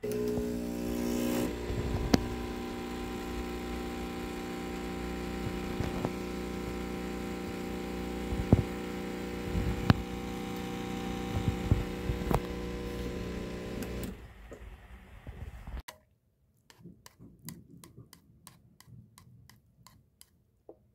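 Home espresso machine's pump running with a steady buzzing hum while a shot brews into a glass mug, with a few clicks on top. The hum dies away after about fourteen seconds, and faint scattered clicks follow near the end.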